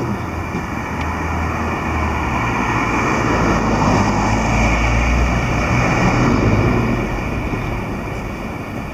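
Traffic on a city street: a car driving past close by, its engine and tyre noise swelling to a peak around the middle and then fading away.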